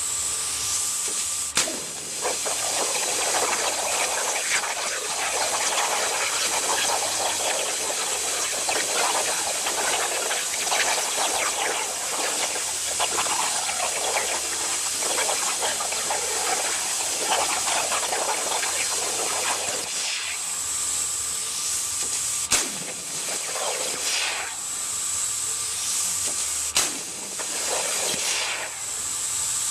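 CNC plasma cutter's torch cutting metal, a loud continuous hiss of arc and compressed air. It is broken by a few sharp cracks, one early and two in the second half, and comes in shorter spells near the end as the torch moves between cuts.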